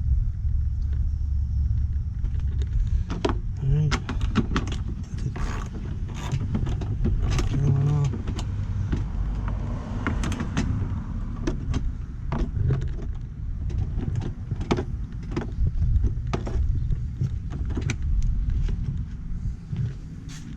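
A socket wrench being worked on the scooter's 10mm nuts: irregular clicks and knocks of the tool against metal, over a steady low rumble.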